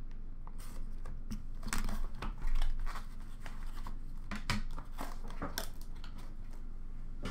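Hands unwrapping and opening a cardboard box of trading cards: wrapping crinkling and cardboard rustling, with scattered clicks and a louder burst about two and a half seconds in.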